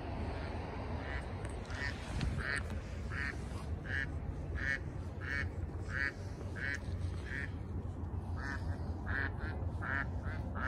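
A duck quacking over and over in a steady run of short calls, about three every two seconds, with a brief break about two-thirds of the way through.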